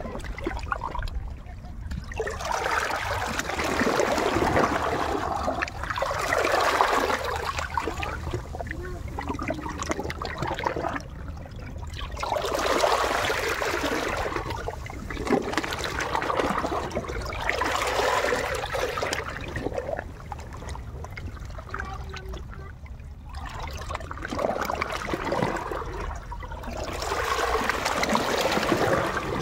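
Small sea waves washing in and draining out among coral rocks and a shallow tide pool, swelling and falling away every few seconds.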